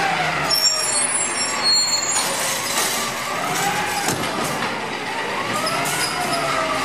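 Automated side-loader garbage truck's diesel engine running while its hydraulic arm grabs and lifts a wheeled recycling cart, the hydraulics whining and rising and falling in pitch as the arm moves. A few brief high squeaks come near the start as the truck stops.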